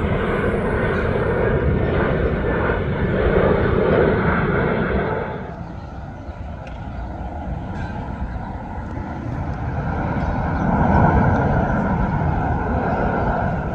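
Jet airliner engine noise, loud at first, easing off about five seconds in and building again toward the end.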